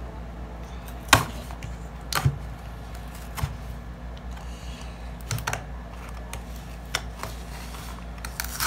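Small cardboard box being handled and opened by hand: scattered taps, clicks and scrapes of fingers on card as the end flap is picked at and pulled open. The sharpest clicks come about a second in and around two seconds in.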